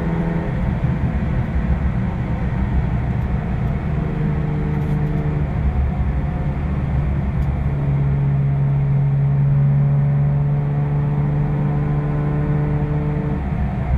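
BMW car engine heard from inside the cabin at speed, over steady road and tyre rumble. Its note changes several times: it drops away about half a second in, comes back briefly around four to five seconds, then holds one steady pitch from about eight seconds until it changes again near the end.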